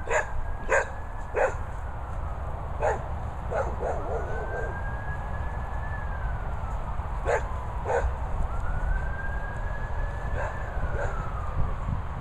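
Emergency-vehicle siren wailing, its pitch rising and falling in long slow sweeps every four to five seconds. A dog barks sharply a few times over it, mostly in the first few seconds and again twice around the middle.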